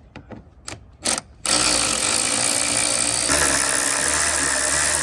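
A few light clicks, then about a second and a half in a motor-driven machine starts and runs steadily and loudly, its sound getting fuller in the low end a little past halfway.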